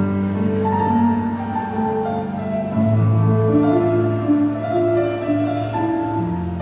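Slow instrumental music: long held bass notes under a melody of sustained notes that changes about once a second.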